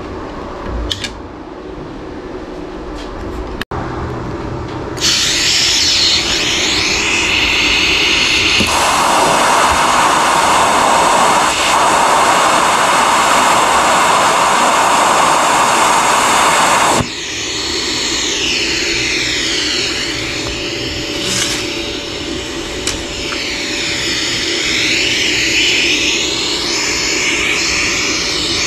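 Lift-start TIG torch on a YesWelder Flux 135 Pro: a steady hiss from the torch starts about five seconds in. From about nine seconds the welding arc burns with a louder, dense hiss for about eight seconds, then cuts off suddenly. A wavering, sweeping hiss from the torch continues afterwards.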